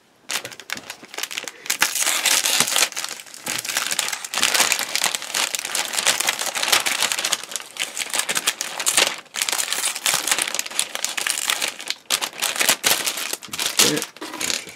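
Clear plastic bag crinkling and rustling continuously as a plastic model-kit sprue is slid out of it by hand, with a couple of brief pauses.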